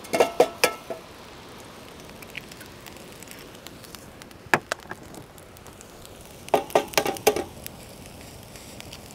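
Frying pan and cooking utensils clinking and knocking over a campfire: a quick run of metallic clinks at the start, a single knock near the middle, and another run of clinks about two-thirds through, over a steady low hiss.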